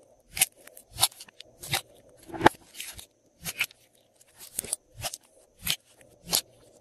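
Glossy slime being squeezed and stretched by hand, giving a dozen or so short, sharp pops and clicks as trapped air bursts. The loudest comes about two and a half seconds in.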